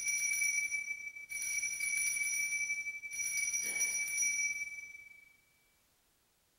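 Altar bells (Sanctus bells) rung in three shakes, marking the elevation of the chalice at the consecration. The ringing dies away about five seconds in.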